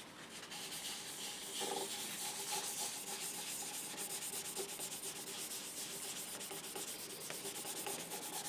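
Folded paper towel rubbed back and forth along a guitar fretboard, working in fretboard oil: a soft, steady scratchy rubbing with quick repeated strokes.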